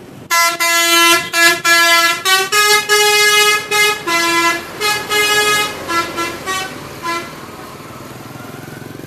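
Telolet multi-tone musical air horn of a Harapan Jaya bus, sounding a rapid series of short and long notes at changing pitches like a little tune. The horn stops about seven seconds in.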